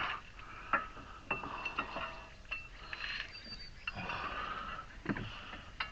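Metal car parts and tools clinking and tapping as a part is fitted onto a wheel hub assembly: scattered sharp clicks with short metallic rings, and a brief grunt about five seconds in.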